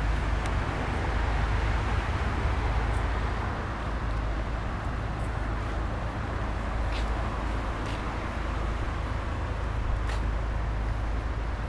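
Steady low rumble and hiss of motor noise from a long river barge under way, mixed with road traffic.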